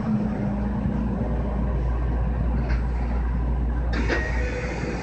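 JR West 225-5100 series electric commuter train moving slowly, heard from inside near the cab: a steady low rumble, with a motor hum in the first second. A few sharp clicks and knocks come in near the end.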